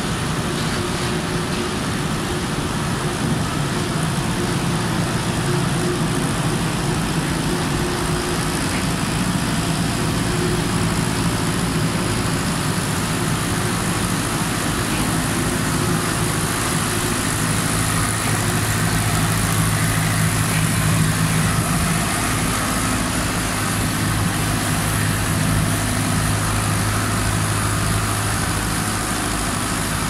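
Diesel farm tractor engine running steadily at low revs as the rail-mounted tractor tows cable-drum trolleys along the track, heard inside a concrete railway tunnel.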